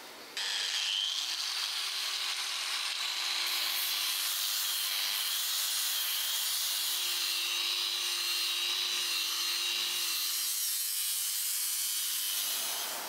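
Angle grinder switched on about half a second in, then running steadily with a whine as its disc grinds the old steel cleaver blade, throwing sparks. It eases off near the end.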